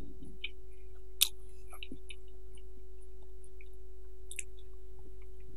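A man chewing green beans, with small scattered mouth clicks and one sharper click about a second in, over a steady high electrical hum.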